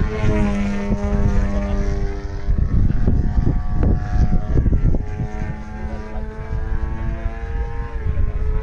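Propeller aircraft engine running at a steady pitch as the plane flies overhead. The tone fades in the middle and returns after about five seconds, rising slightly near the end, over a low wind rumble on the microphone.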